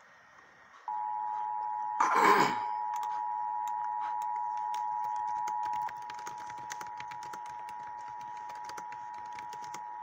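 Emergency Alert System two-tone attention signal, two steady tones sounding together from a speaker, starting about a second in. A brief loud noisy burst comes about two seconds in. The tone drops in level a little before six seconds, with faint scattered clicks over it.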